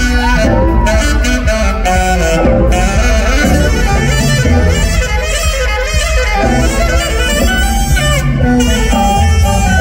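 Saxophone solo played live, with fast runs and bending notes, over the band's bass and drums.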